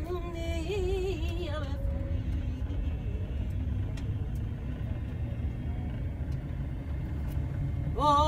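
Steady low road rumble inside a moving car. A singing voice with wide vibrato trails off over the first two seconds, and a new sung phrase starts near the end.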